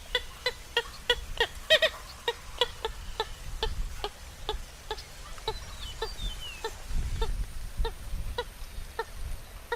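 Purple gallinule calling: a rapid series of short, clucking notes, about three a second, growing fainter as the series goes on. A faint falling whistle from another bird near the middle.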